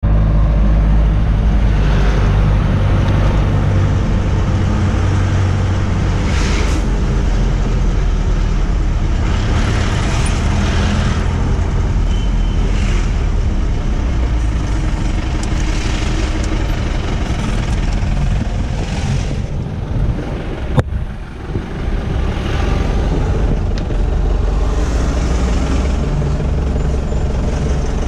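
Inside a moving vehicle's cab: steady low engine and road rumble with a rushing hiss that swells every few seconds. A single sharp click about three-quarters of the way through, followed by a brief lull.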